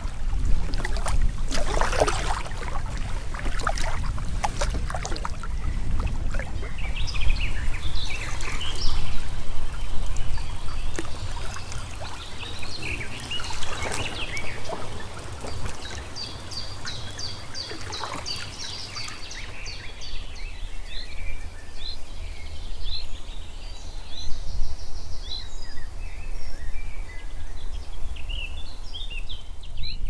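Paddle strokes splashing and water trickling off the blades as a packraft moves along a river, with songbirds chirping over it from about halfway through. A steady low rumble runs underneath.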